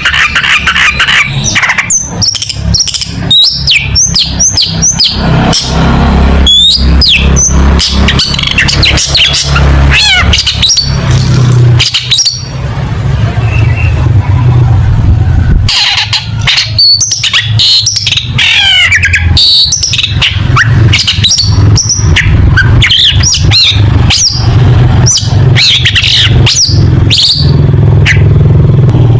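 Long-tailed shrike (cendet) singing hard: a fast, loud jumble of sharp chirps, whistled sweeps and trills, the mimicked 'tembakan' phrases of a song-rich bird, with a steady low hum underneath.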